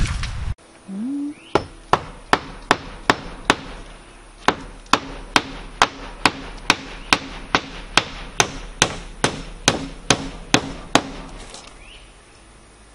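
Hammer driving nails to fasten a newly set window into its wall opening: a steady run of sharp blows, two or three a second, with a short pause about four seconds in, stopping near the end.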